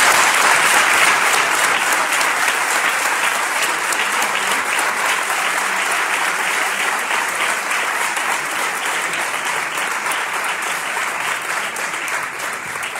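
A large audience in an auditorium applauding, a dense, steady clapping that eases slowly and dies away at the very end.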